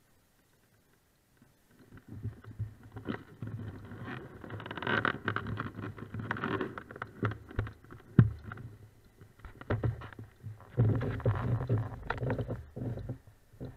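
Handling noise from the handlebar-mounted action camera as it is moved: irregular rubbing, rumbling and clicking knocks on the camera and its mount. It begins about two seconds in and comes in uneven bouts, with one sharp knock about eight seconds in.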